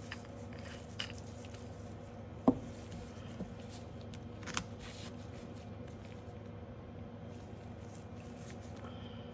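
Light clicks and taps of nail-stamping tools being handled: a metal stamping plate, polish bottle, scraper and clear silicone stamper. The sharpest tap comes about two and a half seconds in and a smaller one about two seconds later, over a steady low hum.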